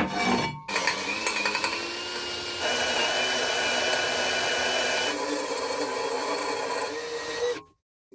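A handheld electric power tool running on metal: a steady high whine over a hiss, changing pitch and tone twice as the load shifts, cut off abruptly near the end. A few metal clanks come just before it starts.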